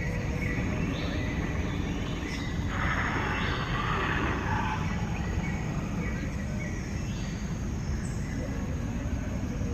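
Steady low background rumble, with a brief rush of noise about three seconds in.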